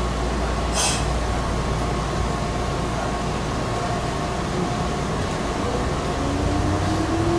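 Meitetsu 6000 series electric train running, with steady running noise and a brief sharp click about a second in. Near the end a traction-motor whine begins rising in pitch as the train picks up speed.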